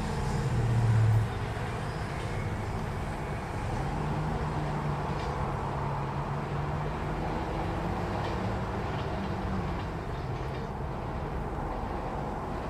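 Train running on the tracks: a loud swell in the first second, then a steady rumble with a faint low hum that slowly rises in pitch and dies away near the end.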